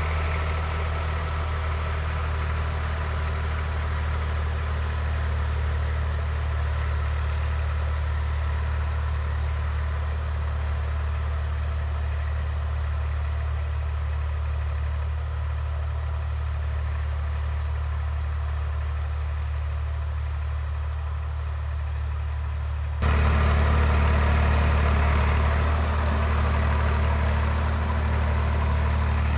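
IMT 542 tractor's diesel engine running steadily, a deep even drone. About three-quarters of the way through the sound cuts abruptly to a louder, closer engine note.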